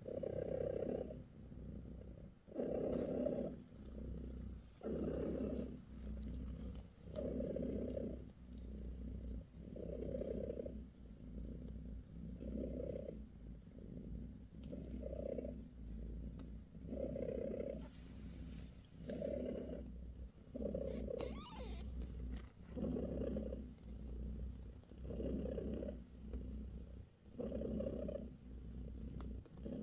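British Shorthair mother cat purring close up. The purr swells and eases with each breath, about every two and a half seconds.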